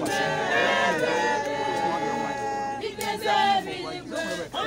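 A church choir singing, the voices holding long notes.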